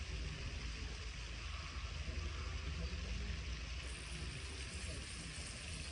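Steady outdoor background noise: a low, uneven rumble with a hiss above it and no distinct event.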